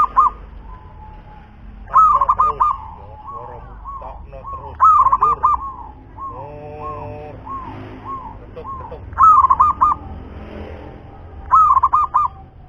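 A caged zebra dove (perkutut) sings its cooing song in four phrases. Each phrase opens with a quick loud run of notes and trails off into softer single coos.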